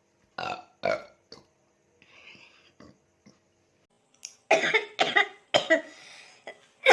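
A woman burping repeatedly, the burps brought up by gulped carbonated Coca-Cola. There are two short burps about half a second in, then a quick run of louder burps from about four and a half seconds on.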